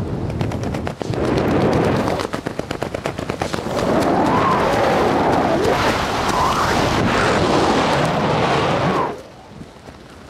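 Wind buffeting a skydiver's helmet-camera microphone: a fast, rattling flutter for the first few seconds, then a steady rush with a faint wavering whistle, dropping away sharply near the end.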